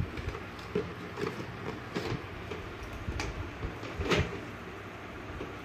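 Cardboard toy box being handled and opened: scattered knocks, scrapes and rustles of the cardboard, the loudest about four seconds in.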